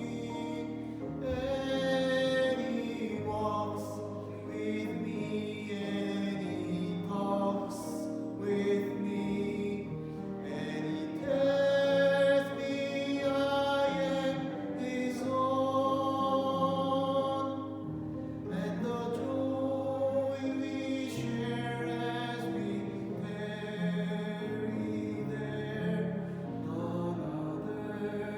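A hymn sung with instrumental accompaniment: held, wavering sung notes over a steady low accompaniment.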